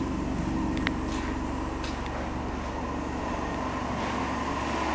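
Steady motor drone with a low hum from water-removal equipment running to pump floodwater out of a basement through a hose, with a couple of faint clicks.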